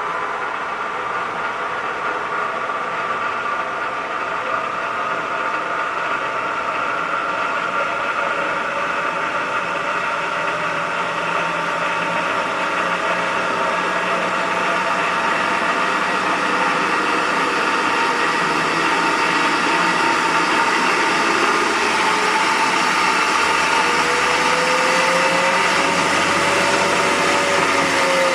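Wilton Model 2025 drill press with its 1-1/2 hp three-phase motor running steadily, its variable spindle speed being adjusted up from the 80 RPM minimum. The hum grows gradually louder, and a tone shifts up and back down near the end.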